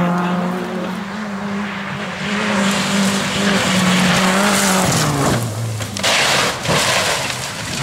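Rally car engine held at high revs while the tyres skid across the tarmac. About five seconds in the engine note falls away as the car goes over onto its side and rolls, with several sharp impacts of bodywork hitting the road and scraping along it.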